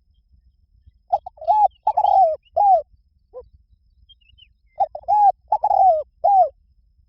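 Spotted dove cooing: two phrases of four or five low, falling coos, with a single short coo between them.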